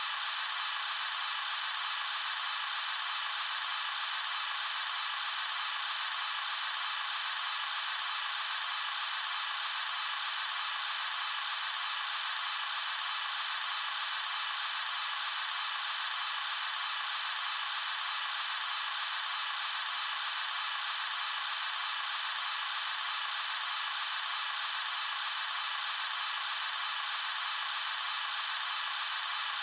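Loud, steady hiss of pressurised gas escaping, even and unbroken, high and airy with no low rumble.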